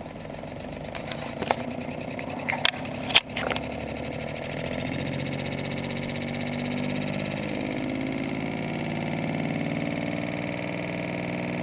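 Bedini pulse motor being spun up: a few sharp clicks, the two loudest about two and a half and three seconds in, then the rotor runs on by itself with a steady mechanical hum from the pulsed coil and spinning wheel.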